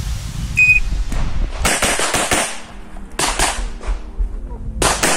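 Electronic shot timer gives one short high beep. About a second later a Beretta 92X 9mm pistol fires quick strings of shots, mostly in fast pairs, with brief pauses between the strings.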